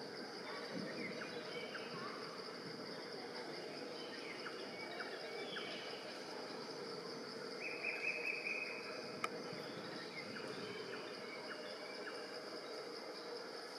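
Forest ambience: a steady high insect drone over a background hiss, with scattered short chirps. About eight seconds in, a louder buzzing tone lasts about a second, and a single sharp click follows soon after.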